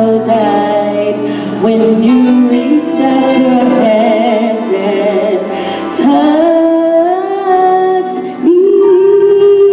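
Female gospel soloist singing long held notes, sliding up into each new note about two, six and eight and a half seconds in, with sustained lower notes beneath.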